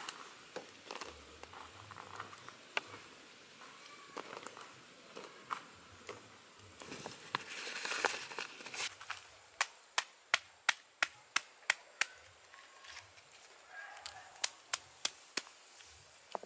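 A large leaf crinkling as it is folded around a red chili. Then a run of about nine sharp knocks, roughly three to four a second, and four more near the end: the leaf-wrapped chili being crushed on a stone.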